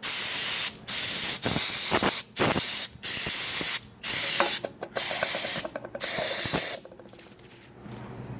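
Aerosol can of throttle body cleaner sprayed in a string of short hissing bursts, about eight or nine in quick succession, washing carbon and grease deposits off a throttle body. The spraying stops about seven seconds in.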